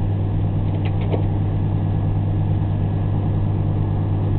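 A vehicle engine idling: a steady low hum at an even level, with a few faint clicks about a second in.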